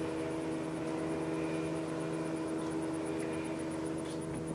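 A steady motorboat engine hum that holds one pitch, with a faint, high-pitched pulsing about five times a second above it.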